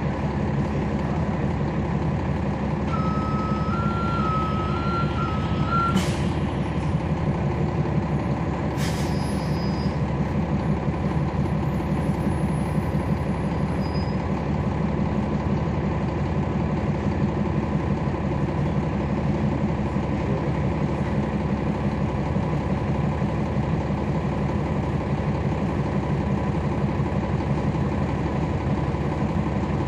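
Cummins ISL9 diesel engine of a 2011 NABI 40-SFW transit bus running steadily, heard from on board. About three seconds in, an electronic beeper alternates between two tones for a couple of seconds, and two short sharp air bursts follow, about three seconds apart.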